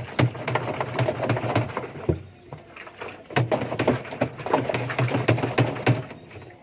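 Washing machine drum being rocked left and right and turned by hand to work it loose from its shaft, rattling and knocking in two stretches with a short lull between them.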